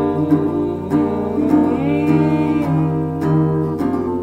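Guitar strummed in a steady rhythm, chords ringing between strokes, as an instrumental bar between sung lines.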